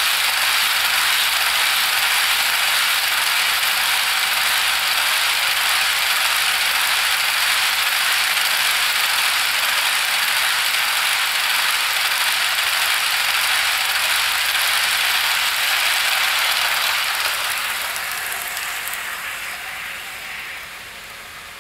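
Plastic wheelsets of a long HO scale train of covered hoppers rolling steadily over Atlas track and a double crossover turnout. The sound fades away from about 17 seconds in as the end of the train passes.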